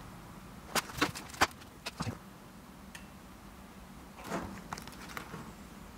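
A handful of sharp little clicks and taps in the first two seconds, then a short rustle about four seconds in: hands handling resistors and fitting them into a bare printed circuit board.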